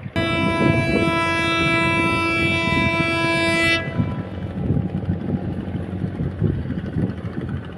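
A vessel's horn gives one steady, loud blast of nearly four seconds, then cuts off. The low rumble of a barge's engine runs underneath it and carries on after.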